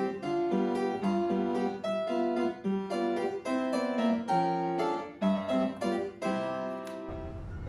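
Background keyboard music in a light, plucked harpsichord-like style, with quick, separate notes. About seven seconds in it cuts off and gives way to a noisier sound with a low rumble.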